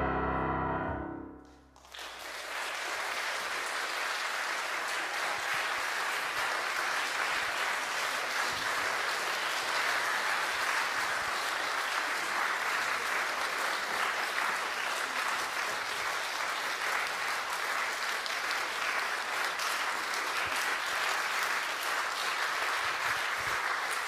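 The final chord of a two-piano performance rings and dies away, then audience applause starts about two seconds in and carries on steadily.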